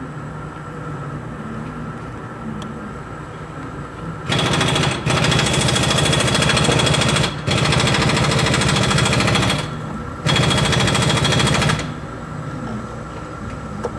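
A loud, fast hammering mechanical rattle starts about four seconds in and runs in three long bursts, with short breaks, until it stops about twelve seconds in.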